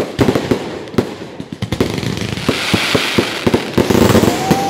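Fireworks going off: a sharp bang at the start, then a rapid run of bangs and crackling from bursting aerial shells, with a hiss swelling about two and a half seconds in. A thin steady tone starts near the end.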